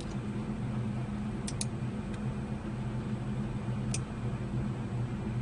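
Computer mouse clicking: a quick double click about a second and a half in and a single click about four seconds in, over a steady low electrical hum.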